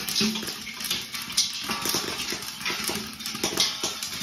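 Corn kernels popping in a hot steel wok. Irregular sharp pops and ticks, several a second, over a steady hiss.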